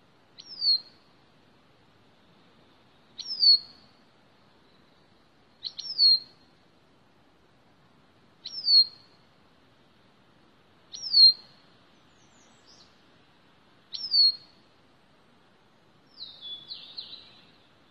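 Bicknell's thrush calling: a single short note that slurs down in pitch, given six times about every two and a half to three seconds. Near the end comes a lower, more broken call.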